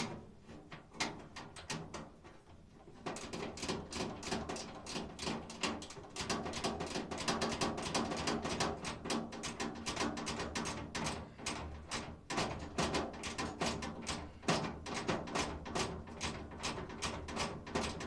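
Irregular clicking and rattling of hand tools on the washer's metal parts, with music starting up in the background about three seconds in.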